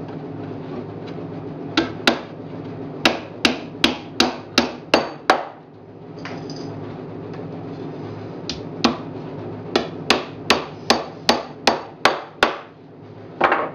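A hammer driving 2-inch galvanized nails through pre-drilled holes into the box-jointed wooden corner of a beehive brood box. There are two runs of quick blows, each of about eight strikes at two to three a second, with a pause of about three seconds between them and one more blow near the end.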